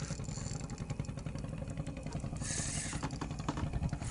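Boat engine running steadily with an even low throb, and a short hiss about two and a half seconds in.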